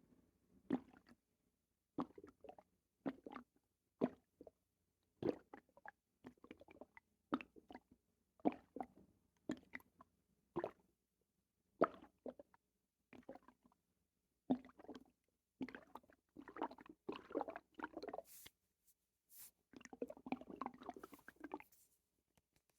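Stomach and bowels gurgling with watery squelches and plops, in short irregular bursts about a second apart that come thicker and busier over the last third. These are bowel sounds that set in right after a bowel movement.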